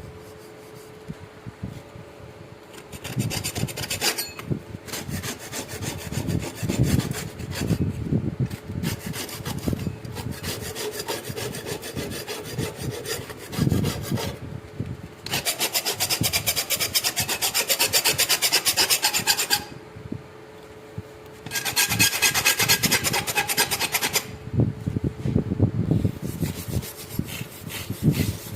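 Rusted steel knife blade being scraped by hand to strip the rust: bouts of rapid back-and-forth scraping strokes with short pauses between them, the busiest and loudest runs about halfway through and again shortly after.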